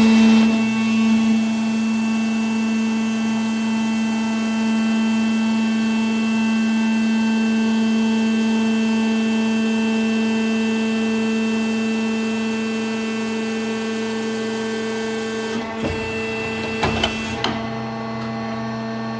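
Pipe bending machine running with a steady, even drone, a low tone with overtones. A few short knocks and clicks come near the end.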